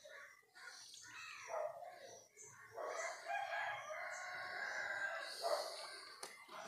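A rooster crowing: one long drawn-out call starting a little before halfway, with shorter, fainter bird calls before it.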